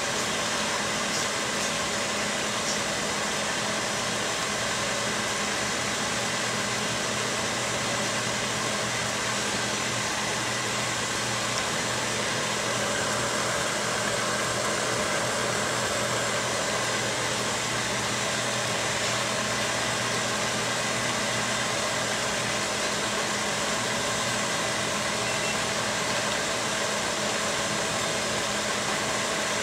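KitchenAid stand mixer motor running steadily, whipping egg whites until they foam.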